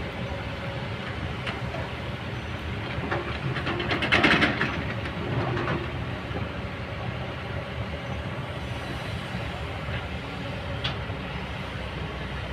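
Kobelco excavator's diesel engine running steadily, with a short burst of clanking and rattling about four seconds in and a few single knocks later.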